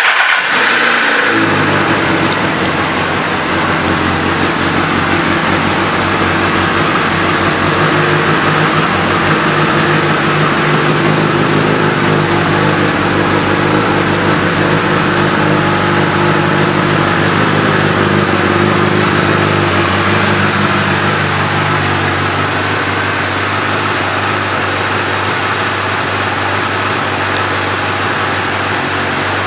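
Suzuki GSX-R1000 inline-four with a Yoshimura exhaust starting up and running at a raised idle. The idle steps down lower about three-quarters of the way through.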